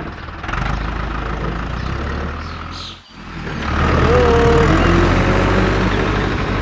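An engine or motor running with a steady low hum, cutting out briefly about three seconds in and then coming back louder. A short pitched call, like an animal bleat, sounds about four seconds in.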